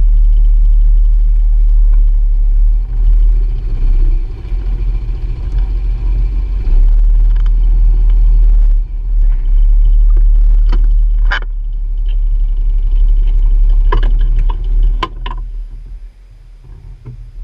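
Honda Pioneer 700-4 side-by-side driving along a dirt forest trail: a loud, steady low rumble of engine and ride, with several sharp knocks and rattles in the second half. The rumble fades near the end.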